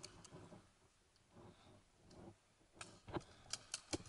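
Paintball markers firing: a quick string of sharp pops, about five a second, starting nearly three seconds in, with a couple of duller thumps among them.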